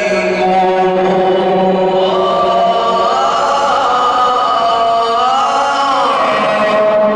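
A man reciting the Quran in a slow, melodic chant, holding one long ornamented phrase without a break. The pitch climbs about two seconds in, wavers there, and sinks back near the end.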